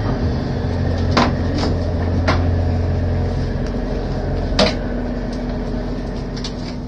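Fishing boat's engine droning steadily, with four sharp knocks from gear on deck while fishing gear is being set; the knock about two-thirds of the way through is the loudest.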